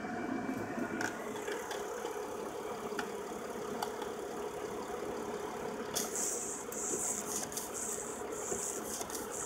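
Mercedes C280 idling steadily with an even hum. About six seconds in, a high hiss joins it, pulsing on and off.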